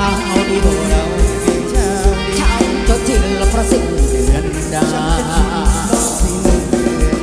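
Live band playing Thai ramwong dance music on electric bass, electric guitar and drum kit, with a steady beat.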